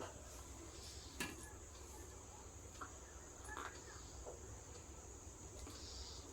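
Quiet eating sounds close to the mic: soft chewing and wet mouth clicks, with one sharper click about a second in. A steady high-pitched drone runs underneath.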